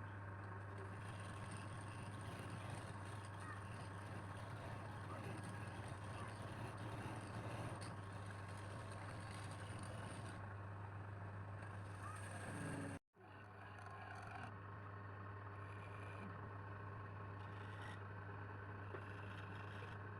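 Wood lathe's electric motor running with a steady hum and faint hiss. The sound cuts out abruptly for a moment about two-thirds of the way through, then resumes.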